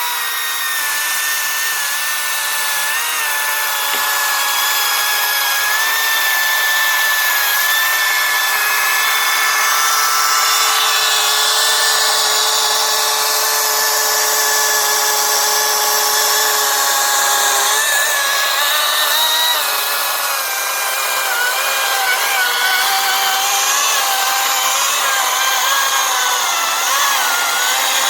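Kobalt 40-volt 14-inch cordless brushless electric chainsaw cutting through a felled tree trunk about 15 inches across: a steady electric whine with the hiss of the chain in the wood. The pitch wavers as the load changes in the second half.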